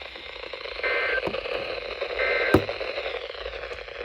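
Two short bursts of the Emergency Alert System's end-of-message data tones, a harsh two-tone digital warble repeated about a second and a half apart, marking the end of the alert. A steady radio hiss lies underneath, and a sharp click comes right after the second burst.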